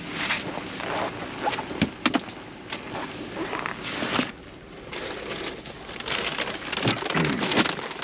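Shopping bags rustling and groceries knocking as they are lifted out of a metal shopping cart and set into a car's cargo area, in irregular handling noises with a few sharp knocks.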